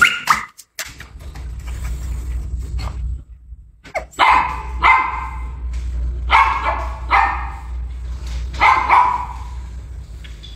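A dog barking in three short bouts of about two barks each, a couple of seconds apart.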